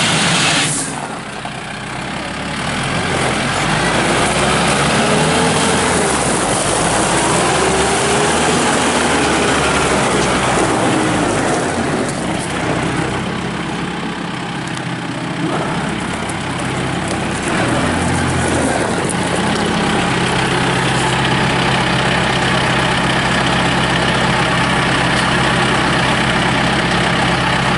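Kubota M6060 tractor's diesel engine running. Its pitch rises and falls through the first dozen seconds as the machine moves, then it settles into a steady idle for the second half.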